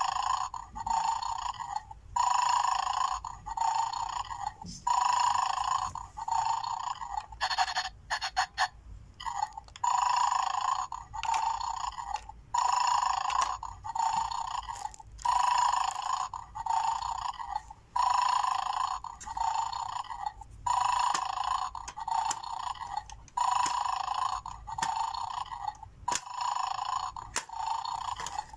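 Mad Dog toy's small built-in speaker playing a looped snoring sound effect, raspy electronic pulses coming roughly once a second, with a quick run of plastic clicks about eight seconds in.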